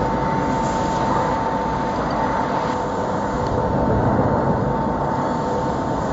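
150S round wood lathe running steadily: a continuous machine noise with a steady whine through it.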